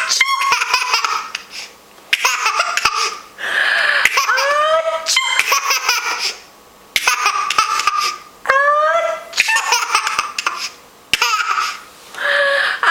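A young child laughing hard in several loud bouts, with short breaks for breath between them.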